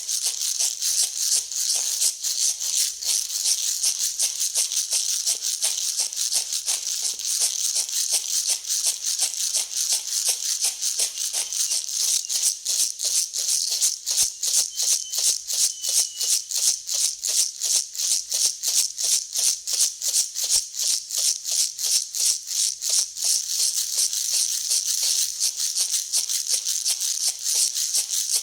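Dry grain being mixed, making a rhythmic hissing rattle of many small kernels, a few strokes a second.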